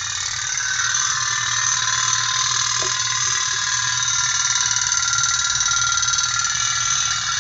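Tin pop-pop steam toy boat running on a camphor flame, its boiler giving a loud, steady, high-pitched buzzing rattle with a low hum under it. The buzzing builds over the first second and then holds; this sound is the sign that the boat has started moving.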